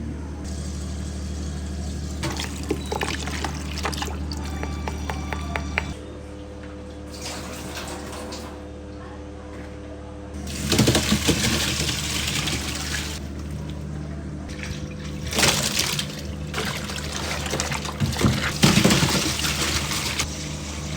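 Water running in several spells of a few seconds each, over a steady low hum.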